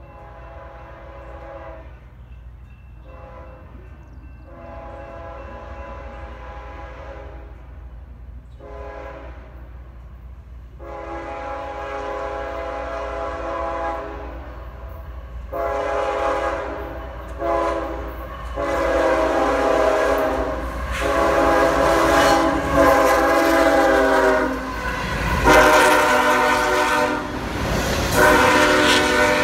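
CSX ES44AH diesel locomotive's multi-note air horn, sounded in a long series of blasts with short breaks and growing steadily louder as the train approaches. About 25 seconds in the locomotive reaches the microphone and a heavier rumble of engine and wheels joins the horn, followed by the rolling of the intermodal well cars.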